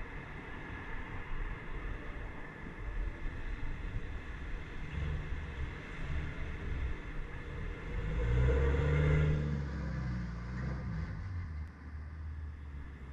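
Slow city traffic heard from a bicycle: engines of nearby cars and vans running in a steady low rumble, with one vehicle's engine growing louder about eight seconds in and easing off by ten seconds.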